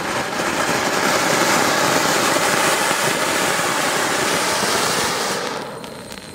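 Anar (flower-pot ground fountain firework) burning with a steady, loud hiss as it throws up a tall column of sparks. It fades away about five and a half seconds in as the fountain burns out.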